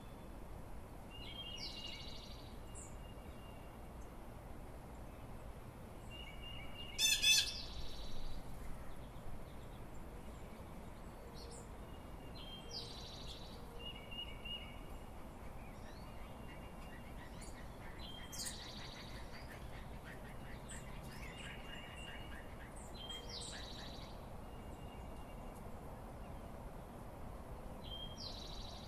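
Dawn chorus of several songbirds calling and singing: short chirps and whistled phrases come again and again. The loudest is a quick, sharp call about seven seconds in, and a fast trill comes in the middle.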